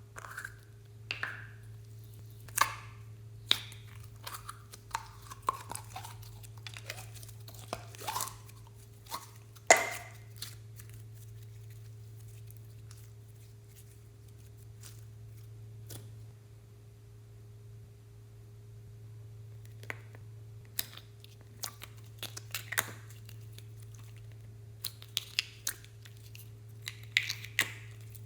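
Slime being squeezed, stretched and mixed by hand, giving irregular clusters of sticky pops and crackles, with a quieter stretch in the middle. A steady low electrical hum runs underneath.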